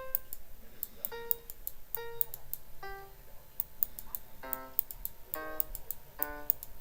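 Music: a keyboard instrument playing short separate notes about once a second, fuller-toned from about halfway, over quick sharp high ticks.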